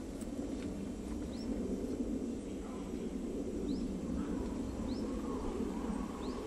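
Woodland ambience: a steady low rumbling noise with four short, high, rising bird calls spread through it.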